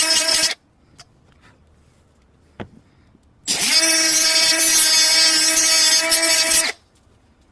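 A 3-inch grinder cutting a slot into a soft speaker mounting bracket: a steady high-pitched whine with a hissy edge. It stops about half a second in, and after a short pause with a faint tick it runs again for about three seconds.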